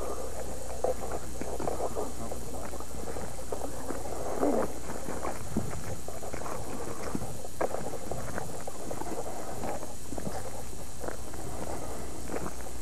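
Footsteps walking along a grassy woodland track: scattered soft crunches and clicks at an uneven pace, over a steady hiss and a low hum from an old home-video recording.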